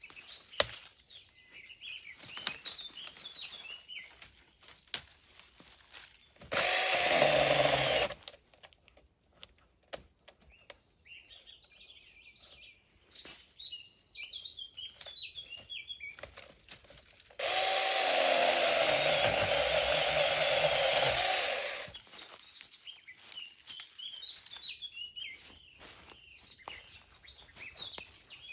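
Battery-powered mini handheld chainsaw cutting wood in two runs, a short one about seven seconds in and a longer one of about four seconds later on. Birds chirp in between, with scattered snaps and knocks.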